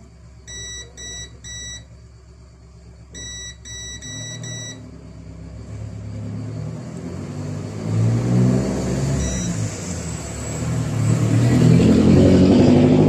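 Digital multimeter's continuity beeper giving short high beeps in quick runs of three or four as the probe touches board components: the short to ground on the T-con board is still present. From about four seconds in, a low engine-like rumble builds up and grows louder, drowning out the beeps.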